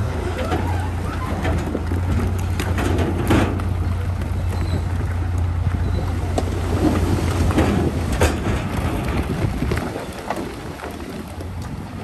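Heavy diesel earthmoving machinery running steadily under load, with scattered clanks and knocks over the low engine drone. Near the end the drone drops away.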